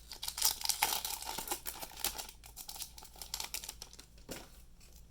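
Foil wrapper of a Pokémon trading card booster pack crinkling and crackling as it is torn open. The crackle is dense and loud for about the first two seconds, then thins to fainter, scattered rustles.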